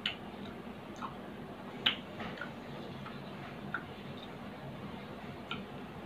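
A person chewing food with their mouth closed: a scatter of sharp, irregular mouth clicks and small crunches over a steady background hiss, the loudest about two seconds in.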